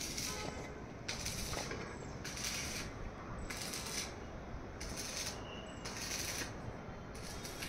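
Repeated hand rubbing strokes on a steel roof frame, roughly one a second, each a short hiss, over steady background noise.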